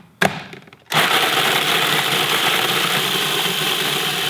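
Food processor grinding rolled tortilla chips (Takis) into fine crumbs: a few short clicks and knocks, then about a second in the motor starts and runs steadily.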